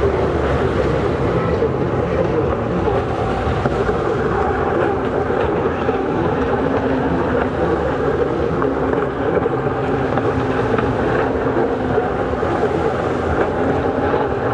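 Engines of several racing jet skis running hard out on the water, blending into one steady drone, with wind buffeting the microphone.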